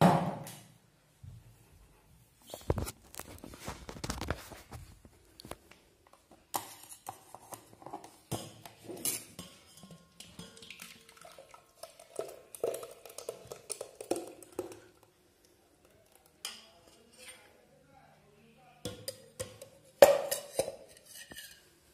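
Stainless steel pots and vessels knocking and clinking while blended melon mixture is poured from one steel vessel into another, in irregular knocks with louder ones at the start and again near the end.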